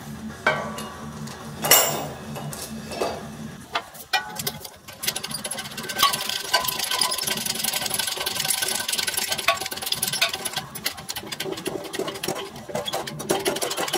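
Metal clunks as a differential housing and spacer are set into a hydraulic shop press, then, about five seconds in, a steady rapid mechanical chatter as the press is run to push the pinion bearing home into the R200 diff housing.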